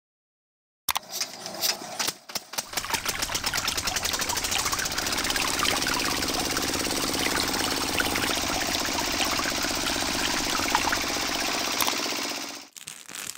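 Small electric motor switched on: quick clicking that speeds up over the first few seconds into a steady buzzing run, then stops shortly before the end.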